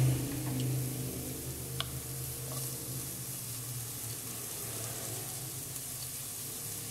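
Chopped onion sizzling in a little hot oil in a pan: a steady frying hiss with an occasional small crackle, over a steady low hum.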